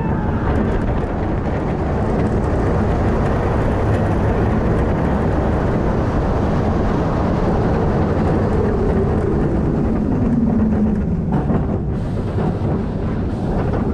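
Wind rush and the running noise of a Kingda Ka roller coaster train, heard from the front seat, as it drops from the top of the tower and races along the return track. About nine to eleven seconds in, a falling whine comes in as the train slows on the brake run.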